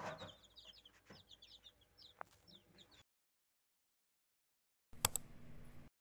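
A brood of newly hatched chicks peeping faintly, many short high peeps overlapping. The peeping cuts off suddenly about three seconds in; a sharp click comes about five seconds in.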